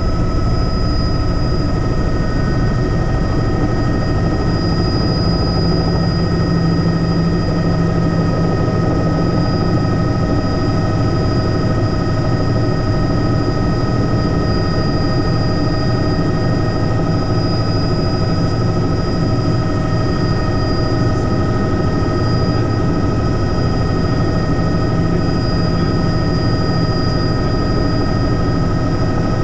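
Tour helicopter running, heard from on board: a steady engine-and-rotor rumble with a constant high whine over it.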